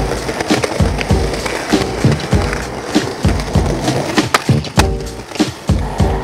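Background music with a steady drum beat and sharp percussive hits.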